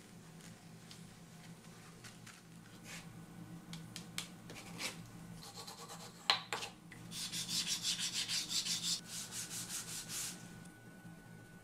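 Canvas cloth rubbed quickly back and forth over a strip of vegetable-tanned leather on a cutting mat, about five strokes a second, for some three seconds. Before it come light handling sounds of the leather and one sharp click about six seconds in.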